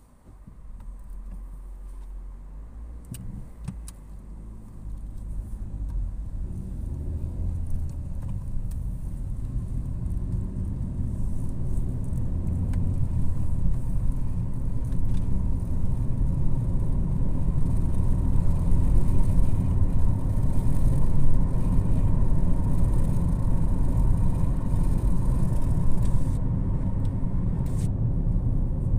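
A car's engine and tyre rumble heard from inside the cabin as it pulls away from traffic lights and accelerates, the drone growing louder over the first dozen seconds, then holding steady at cruising speed.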